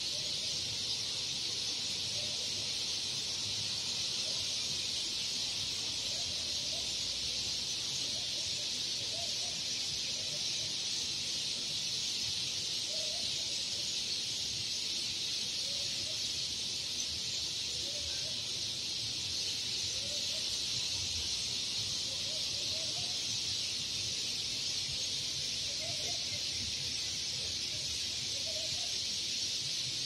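Dense chorus of a large flock of birds chirping all at once, a steady high-pitched wall of sound with no single song standing out.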